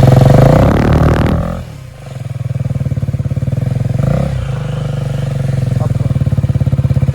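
KTM motorcycle engine running through an aftermarket Akrapovič exhaust, being revved: high revs at first, dropping to idle about a second and a half in, a short blip of throttle around four seconds in, then the revs climbing again until the sound cuts off at the end.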